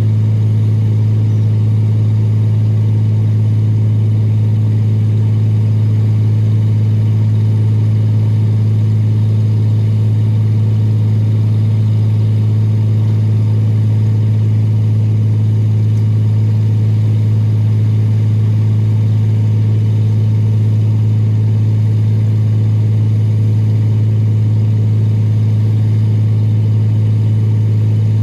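Excavator engine running at a steady speed, a constant low hum that does not change.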